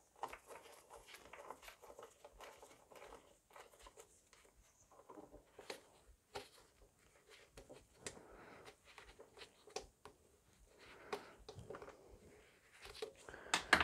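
Faint handling noises as the sheet-metal cover of a power supply is worked loose by gloved hands: light scraping and rustling with scattered small clicks, and a sharper click near the end.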